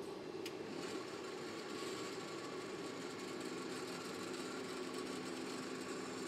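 Steady mechanical hum of factory machinery, with a single click about half a second in and a low steady tone joining about three seconds in.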